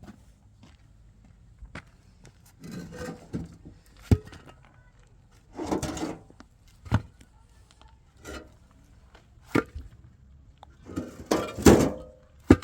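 Irregular knocks and scraping from hand work, a few sharp knocks spaced out and short scraping stretches, the loudest cluster near the end.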